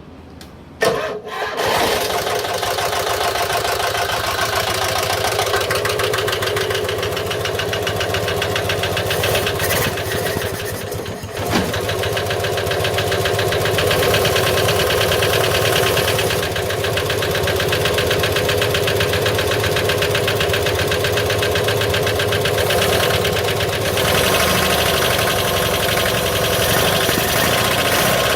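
1964 Toyota 700's air-cooled flat-twin engine starting for the first time after 40 years laid up: it catches about a second in and keeps running, sagging briefly near the middle before picking up again.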